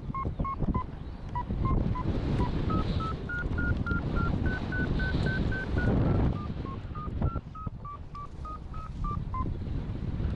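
Paragliding variometer beeping its climb tone, about three short beeps a second, rising in pitch over the first half and then easing lower before stopping near the end; the beeps signal rising air, higher pitch meaning a stronger climb. Wind rushes over the microphone underneath.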